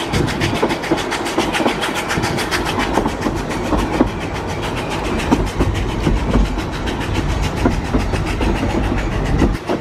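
Narrow-gauge steam train carriage running along the line: wheels rattling on the rails, with a fast, even rhythm of beats that carries on steadily.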